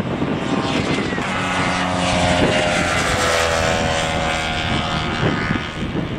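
Boeing 747-8F freighter taxiing, its four GEnx-2B turbofans running at low power with a steady rumble and a whine that drops in pitch over a couple of seconds as it passes.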